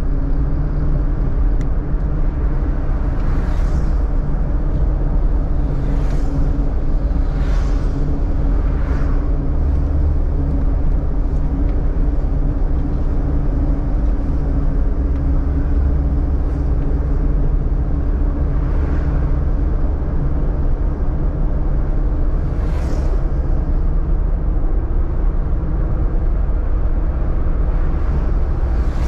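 Traffic noise from driving along a city avenue: a steady, loud low rumble of road and engine, with several vehicles briefly whooshing past.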